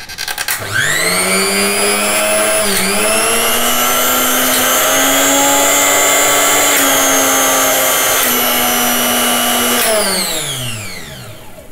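Mixer grinder's universal motor starting up and running with a loud whine that steps up in pitch twice, with small switch clicks, as the speed selector is turned through speeds 1, 2 and 3, then winding down once it is switched off. The speed rising at each step shows the speed-selector wires of the rewound field coil are connected correctly.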